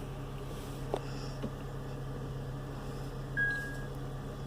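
2008 Acura TSX's 2.4-litre four-cylinder engine idling steadily and evenly with a new ignition coil on cylinder 2: the cylinder-2 misfire is cured. A click about a second in and a short beep near the end.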